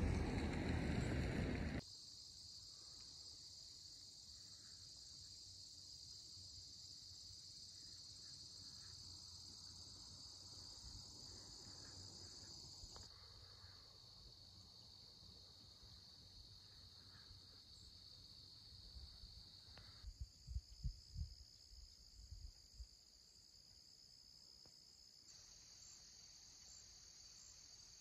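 Crickets singing steadily in a high, continuous chorus. At the start, a loud low noise cuts off suddenly about two seconds in, and a few low thumps come about two-thirds of the way through.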